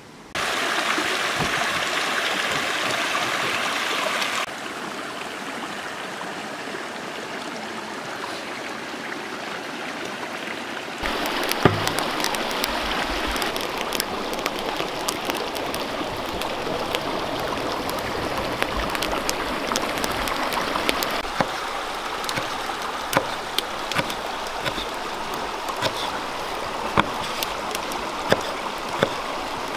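Steady rushing water, its loudness jumping abruptly a few times in the first third. From about a third of the way in, scattered sharp clicks and taps sound over it.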